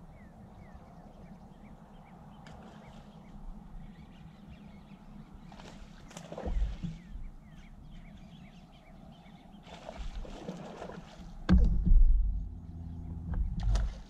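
Water sloshing and slapping against a bass boat's hull, with several heavy low bumps. The loudest come near the end.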